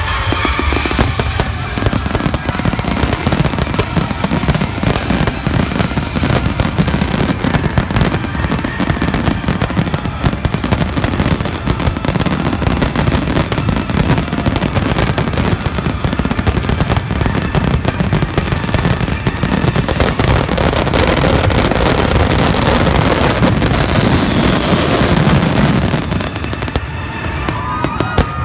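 Fireworks grand finale: a continuous, dense barrage of aerial shells booming and crackling over one another, which thins out near the end as crowd cheers and whistles rise.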